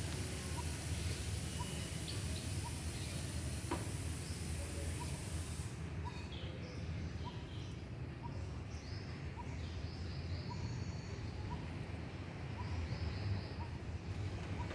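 Faint, short bird chirps over a steady low background hum and hiss; the chirps come more often after the hiss drops away, about six seconds in.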